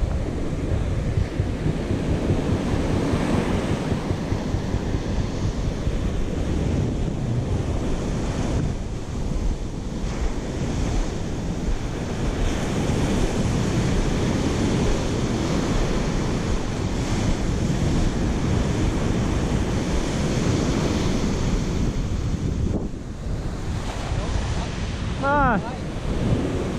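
Surf breaking and washing up the beach, with wind buffeting the microphone.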